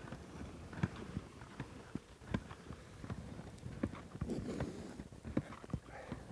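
Ski touring stride uphill in fresh snow: skis on climbing skins shuffling forward, with irregular knocks and clicks about one or two a second from the gear and pole plants.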